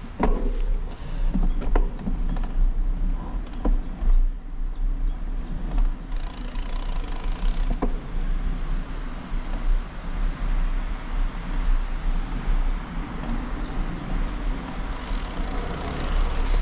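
Riding noise of a bicycle picked up by a handlebar-mounted GoPro HERO11 with its wind reduction switched off: a heavy, steady low rumble of wind and road vibration under a hiss of tyre and air noise, with a few sharp clicks or rattles from the bike.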